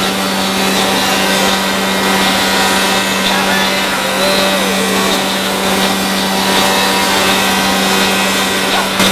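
IIDA moulder running steadily through a production run, a loud even machine noise with a strong steady hum under it.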